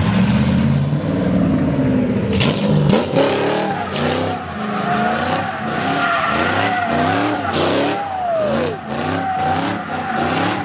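A car doing donuts, its tyres squealing steadily against the pavement. The engine holds a steady drone at first. From about two seconds in, it revs up and down over and over, about twice a second, as the driver works the throttle through the spin.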